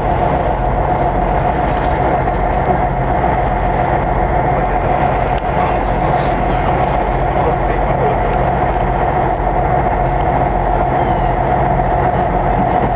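Sightseeing boat's engine running steadily, a constant drone with a low rumble.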